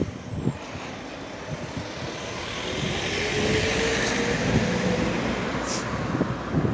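White flatbed light truck driving past close by: its engine and tyre noise swell to a peak about four seconds in, with a faint steady engine hum, then fade as it goes by.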